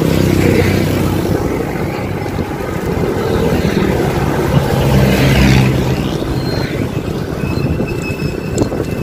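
Motor vehicles passing on the road, engines swelling near the start and again about five seconds in, over a steady rush of wind and road noise on the microphone.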